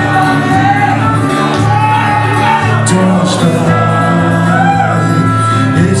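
Live band music: acoustic guitar with trumpet and singing.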